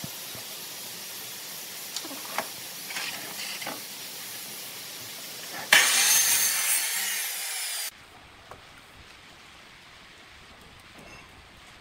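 Pencil scratching on a wooden board, then about six seconds in a Ryobi sliding miter saw cuts through the board: a loud, sudden burst of blade-in-wood noise lasting about two seconds that fades and cuts off suddenly. Faint pencil marking follows.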